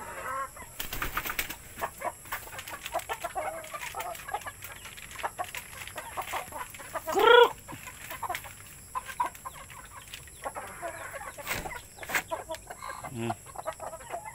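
Native chickens clucking, with one loud call that rises and falls about seven seconds in, and a rustling burst about a second in.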